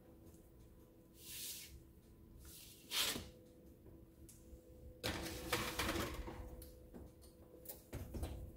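A metal sheet pan loaded with root vegetables scraping and clattering onto a wire oven rack, with a sharp knock first and a longer rattle in the middle. Near the end the oven door swings shut with a few clicks.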